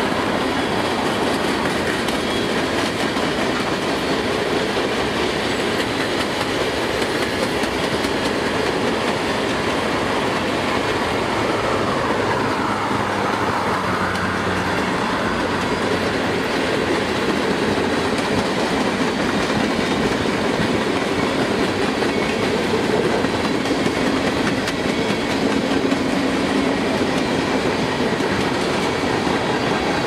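Empty covered grain hopper cars of a Canadian Pacific freight train rolling past, their steel wheels running on the rails in a steady, unbroken noise.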